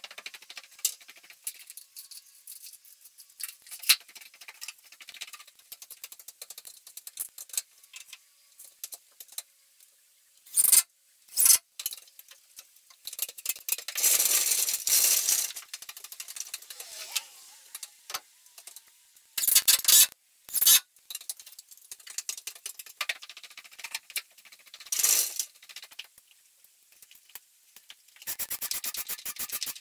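Construction-site work sounds played back eight times fast, so they come out as a dense patter of small clicks, knocks and rattles. Short loud bursts of hiss come about 11, 15, 20 and 25 seconds in, and a fast run of ticks comes near the end.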